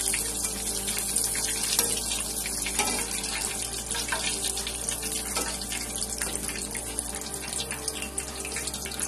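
Breaded pangasius fish fillets deep-frying in hot oil in a steel karahi, the oil sizzling and crackling steadily; the fish is fully fried and being lifted out on a wire-mesh strainer.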